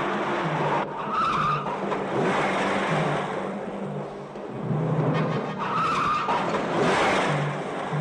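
A car speeding through a sharp chase, its tyres squealing twice, about a second in and again past the middle. Under it a film score plays a repeating low note.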